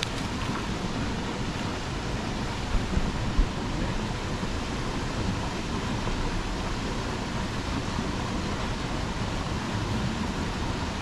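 Steady outdoor rushing noise, with a few short low bumps about three seconds in.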